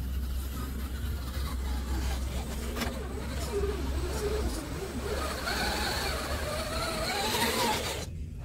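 Electric motor and drivetrain whine of a 1/10 scale RC crawler driving through beach sand. The pitch wavers up and down with the throttle as it comes close, over a steady low wind rumble on the microphone.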